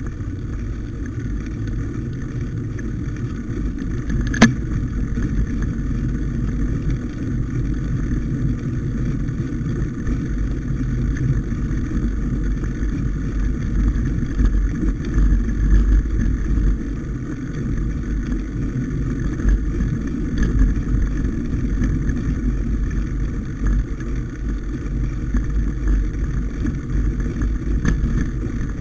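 Steady low rumble of a bicycle rolling over a rough, snow-covered field track, heard from the bike itself, mixed with wind on the microphone. One sharp click about four seconds in.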